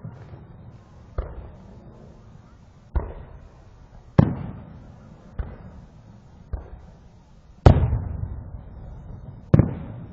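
Fireworks bursting: seven sharp bangs at uneven gaps of roughly one to two seconds, each trailing off as it echoes, the loudest about three quarters of the way through.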